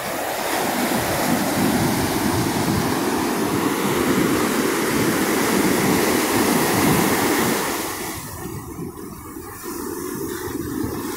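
Pacific Ocean waves breaking and rushing up the beach, a dense steady roar that eases a little about eight seconds in.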